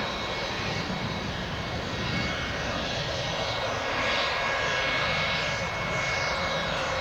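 Jet airliner engines running, a steady rushing noise with a faint, thin, steady high whine.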